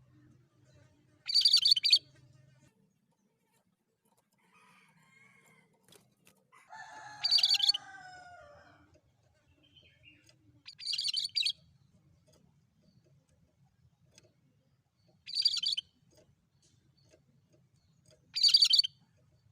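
Cucak kerinci singing: five short, harsh, high-pitched bursts of song spaced a few seconds apart. A lower call about two seconds long, falling in pitch, comes near the middle.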